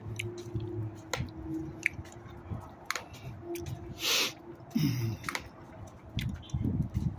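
Scattered light clicks and scuffs of footsteps on a concrete walkway, from a person walking a small terrier-mix dog on a leash, over a faint steady hum. A brief rush of noise comes about four seconds in.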